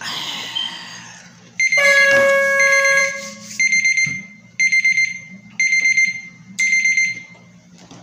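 Countdown timer alarm going off as the time runs out: a long electronic tone for about a second and a half, then four short beeps about a second apart.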